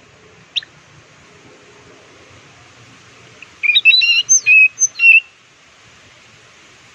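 Orange-headed thrush (anis merah) singing: one short sharp note just after the start, then, about three and a half seconds in, a quick phrase of varied notes that jump up and down in pitch and lasts under two seconds. A faint steady hiss lies under it.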